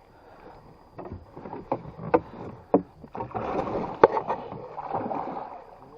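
Water splashing around a small boat, with several sharp knocks against it.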